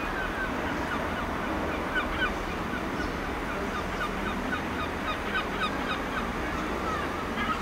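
Birds calling over and over in short, irregular chirps, over a steady low rumble.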